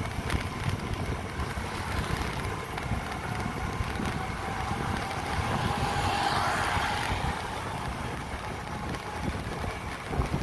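Wind buffeting the microphone of a phone carried on a moving two-wheeler, over a steady rumble of road and traffic noise, swelling louder about six seconds in.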